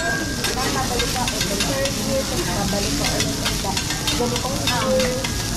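Food sizzling on a steel teppanyaki griddle, with a metal spatula scraping and clicking against the hot plate many times.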